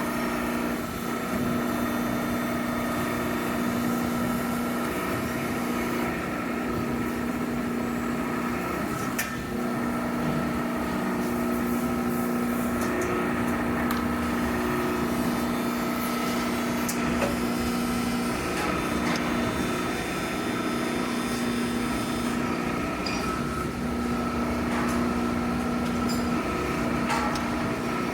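Machinery running steadily with a constant hum and a few light clicks.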